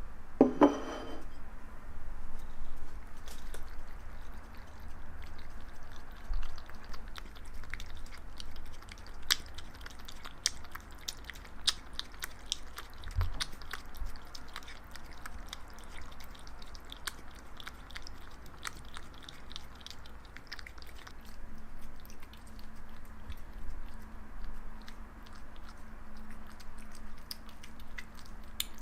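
Ragdoll cat chewing, a long irregular run of small crunching clicks, after a brief pitched sound just at the start.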